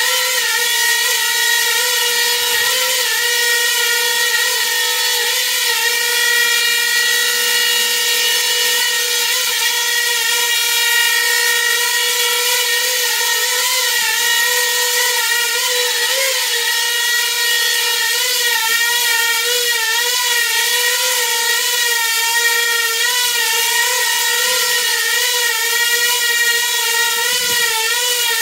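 Coaxial drone's contra-rotating propellers and motors whining steadily in a hover, the pitch wobbling up and down repeatedly as the flight controller works the motors during an Ardupilot AutoTune session.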